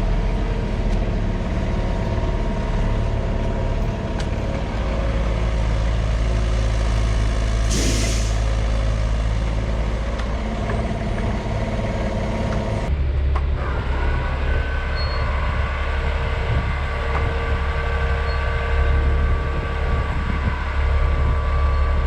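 Heavy machinery engine running steadily, with a short hiss about eight seconds in; the engine sound changes abruptly about thirteen seconds in.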